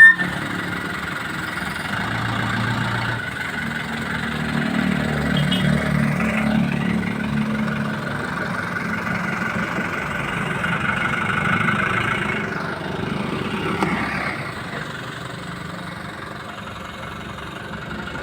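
Heavy-equipment engine running steadily, its sound swelling and easing over several seconds.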